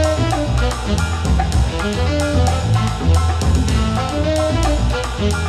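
Instrumental background music: a drum kit keeps a steady beat over a moving bass line.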